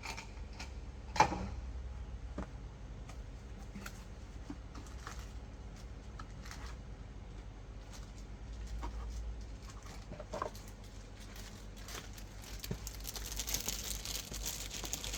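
Small parts and tools being handled: scattered light clicks and knocks, with one sharp knock about a second in and rustling near the end, over a steady low hum.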